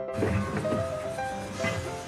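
Background music: a melody of held notes moving in steps over a low beat.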